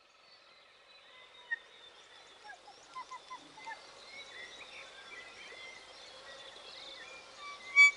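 A chorus of birdsong fading in from silence: many chirps and whistles, with one bird repeating a quick high note several times a second, and a single louder call near the end.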